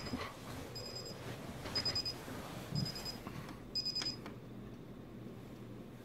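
iHome clock radio's alarm beeping, a short high beep about once a second, which stops about four seconds in as a hand presses the top of the clock. Soft bumps and bedding rustle sound under the beeps.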